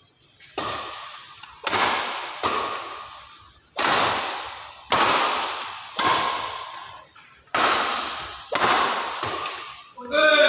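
Badminton rackets hitting a shuttlecock in a rally, about nine sharp cracks at an uneven pace, each ringing on in the large hall. Near the end a player's voice rings out briefly.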